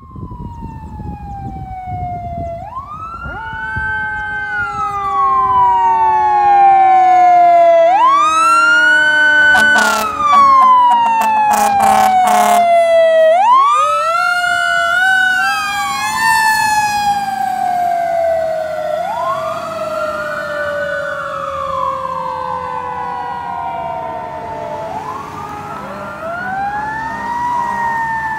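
Fire engine responding with its siren on: a wail that climbs quickly and falls slowly, over and over, with a string of short horn blasts about ten to thirteen seconds in. The siren is loudest as the truck goes by, drops in pitch as it passes, and grows fainter as it drives away.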